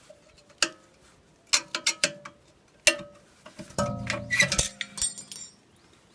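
Sharp metallic clicks and knocks of hand tools on brake parts, then about four seconds in a louder metallic clatter that rings on briefly, followed by a few light tinkles.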